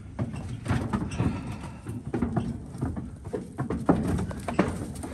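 Cattle hooves clattering on a livestock trailer's floor as cows step down and out, a string of irregular knocks and thuds with a couple of louder bangs near the end.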